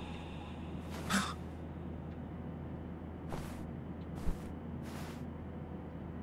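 Steady low drone of an airliner cabin in flight, with a few brief soft rustles and a light knock about four seconds in.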